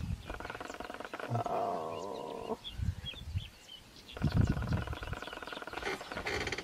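Cape buffalo bellowing in distress while spotted hyenas attack it from behind: two long, moaning calls, each lasting about two seconds, with a pause between them.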